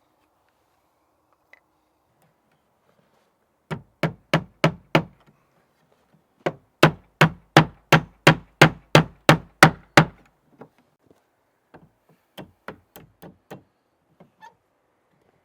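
Hand-tool blows on wood: five quick knocks, a short pause, then about a dozen faster, louder blows at roughly three or four a second, and a few lighter taps near the end.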